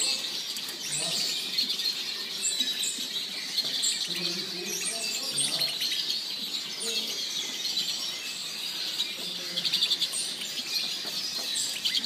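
Many caged songbirds, goldfinches and canaries among them, chirping and twittering together in a dense, continuous chatter.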